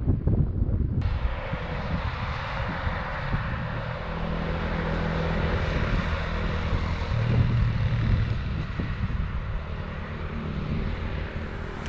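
Wind buffeting the microphone, with the steady drone of a distant engine that settles to a lower pitch about seven seconds in.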